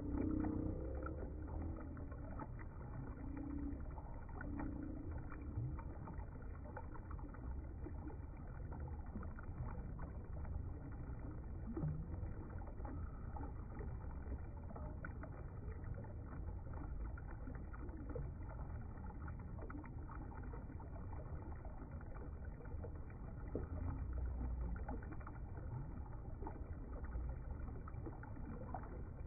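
Shallow river water running over a rocky bed: a steady, muffled rush with many small trickles and splashes.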